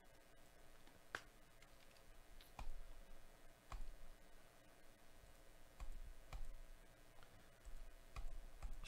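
Faint, irregular clicks of a computer mouse, about eight in all, some with a soft low thump.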